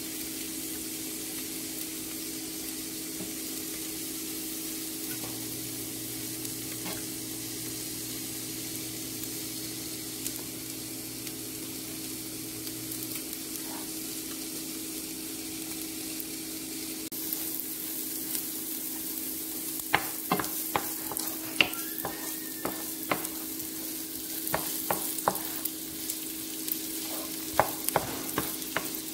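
Butter and oil sizzling in a nonstick frying pan as a spatula stirs it. About halfway through the sizzle grows louder as chopped pieces go into the fat, and from then on the spatula knocks and scrapes against the pan many times. A steady low hum runs underneath.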